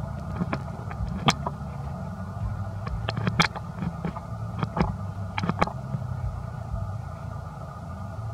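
Steady low rumble with about ten sharp clicks scattered through it, the loudest a little over a second in and near the middle.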